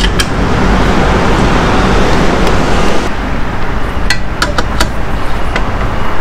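Steel T-handle socket wrenches clinking against metal as nuts are tightened on a scooter engine, with a few sharp clinks about four to five seconds in. Under them runs a loud, steady rumble of vehicle noise that eases off about three seconds in.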